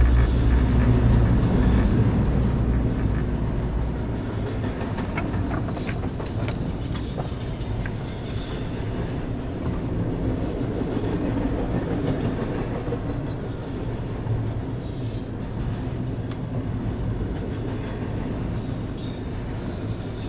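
Double-stack intermodal freight cars rolling past: a steady rumble of steel wheels on rail, heavier in the first few seconds, with a few sharp clicks about five to seven seconds in.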